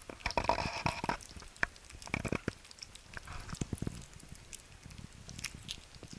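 Abyssinian kittens eating wet cat food from a metal plate: wet chewing, smacking and lapping clicks. A louder, longer noise comes in the first second.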